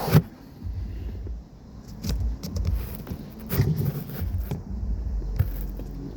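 Hand work on the plastic steering angle sensor and clock spring assembly: scattered clicks and knocks as it is unscrewed and handled, over a low handling rumble.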